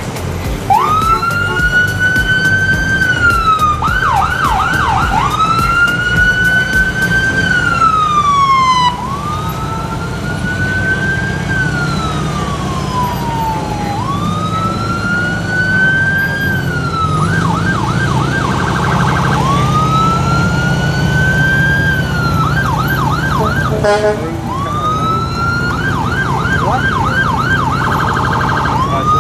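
Emergency rescue truck's siren sounding a slow rising-and-falling wail that repeats every few seconds, broken several times by bursts of rapid yelping, over the low rumble of slow-moving vehicles.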